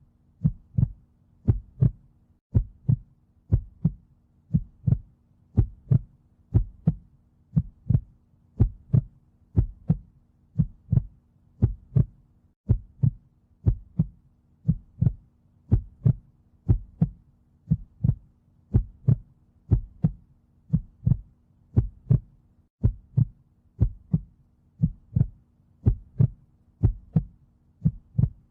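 Heartbeat sound: a steady lub-dub, two low thumps close together, repeating about once a second, with a faint steady hum underneath.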